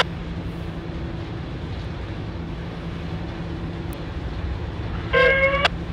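Diesel locomotive engine running with a steady low rumble. About five seconds in, a short, loud high-pitched tone lasts about half a second.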